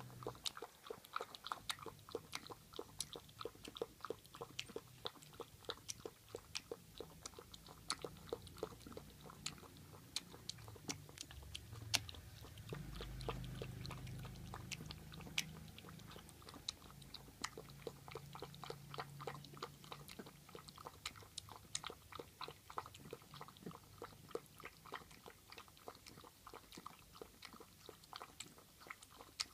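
Young puppy lapping milk from a bowl: a steady run of small wet tongue clicks, several a second. A low rumble comes in for a few seconds midway.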